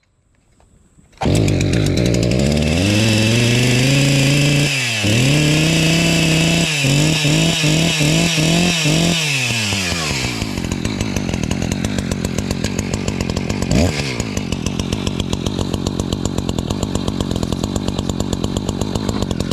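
Two-stroke chainsaw engine, just got running again after being flooded. It comes in suddenly about a second in and revs up, is blipped on the throttle about five times, then settles to a steady idle.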